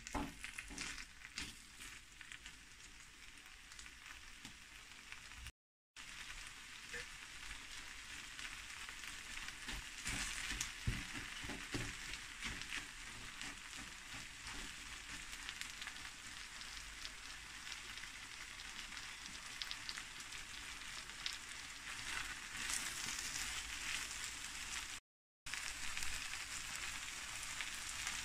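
Chicken, cabbage and vegetables sizzling steadily in a hot pan as a wooden spatula stirs and scrapes through them, with scattered clicks from the stirring. The sound drops out briefly twice.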